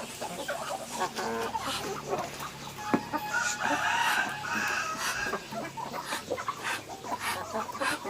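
Flock of village chickens clucking, with a rooster crowing once about three and a half seconds in, among scattered sharp clicks.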